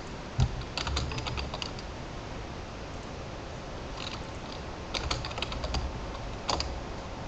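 Typing on a computer keyboard: quick runs of key clicks about a second in and again from about four to six and a half seconds in, with a single low thump just before the first run.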